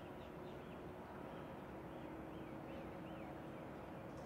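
Steady low hum of a passing container ship's engines and machinery, heard across the water, with runs of quick high bird chirps over it.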